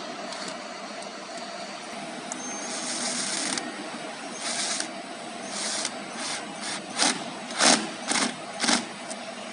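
Woodworking CNC router with a steady machine hum, then a run of short bursts of air hiss that come quicker and shorter toward the end, the sound of its pneumatic cylinders or valves working.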